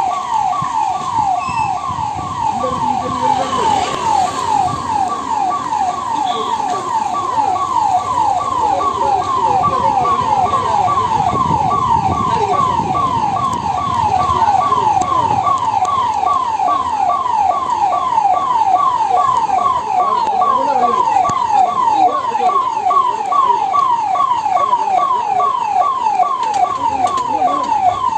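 Emergency vehicle siren sounding a rapid repeating pattern, each note falling in pitch, about three a second, with low road rumble underneath.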